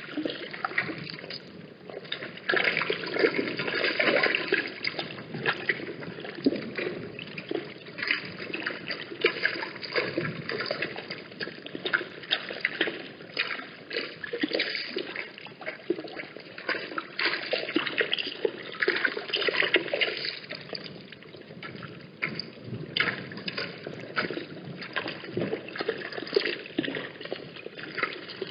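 Water trickling and splashing, a continuous irregular run of small splashes and gurgles.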